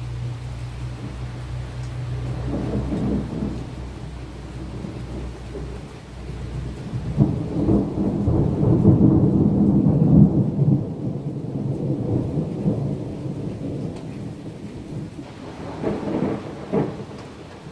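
Thunder rolling in long low rumbles. A softer roll comes a couple of seconds in, then a long, loud rumble swells to its peak about halfway and slowly fades. A shorter peal follows near the end.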